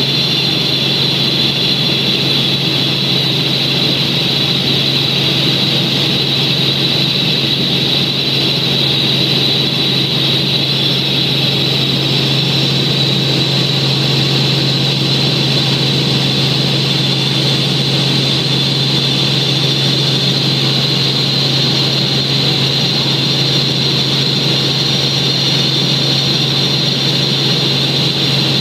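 Helicopter in flight heard from inside the cabin: a loud, steady drone of engine and rotors with a steady high whine over it, unchanging throughout.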